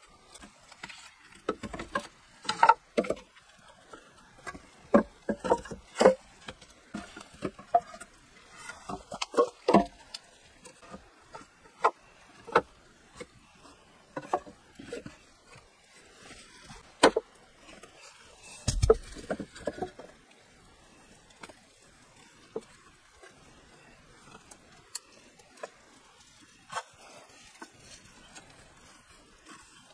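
Round wooden poles knocking and clattering against each other as they are laid side by side across a log bench frame: irregular knocks, ending with a heavier low thump about two-thirds of the way in.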